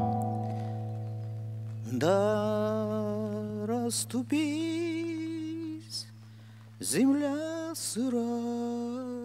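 A chord on a classical guitar rings on while a man sings slow, long-held vowel phrases with a wide vibrato, each phrase sliding up into its note; three phrases begin about two, four and seven seconds in.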